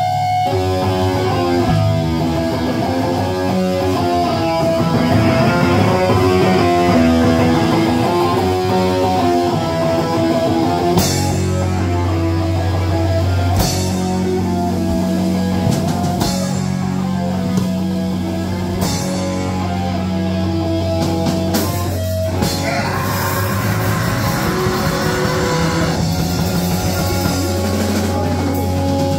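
Live heavy rock band playing loud distorted electric guitars over a drum kit, with hard full-band accents about every two and a half seconds through the middle of the passage.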